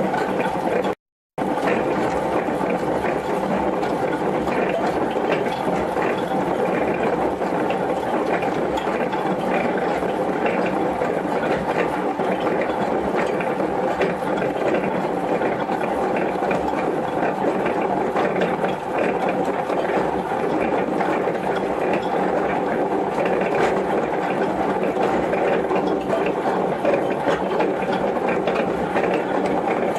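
Homemade coal-boiler feeder running, a steady mechanical grinding with a dense clatter of lumps of coarse coal being moved along. It cuts out for a moment about a second in, then runs on.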